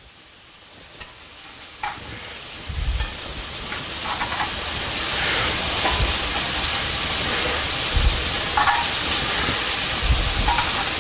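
Cubes of chuck roast sizzling in hot grease on an upside-down cast-iron Dutch oven lid, the sizzle growing louder. Metal tongs click against the lid as the pieces are turned and lifted, and there are a few low thumps.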